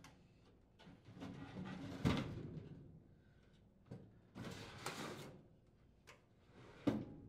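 Furnace blower assembly's sheet-metal housing sliding along its metal support rails into the cabinet, with a knock about two seconds in as it seats. Then a shorter rustle and a few light clicks as the wiring is handled.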